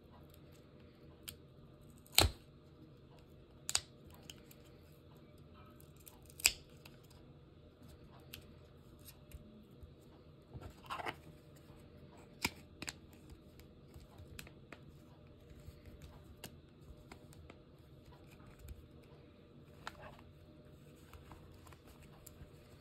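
Scattered sharp clicks and taps, a few much louder than the rest, over a steady low hum.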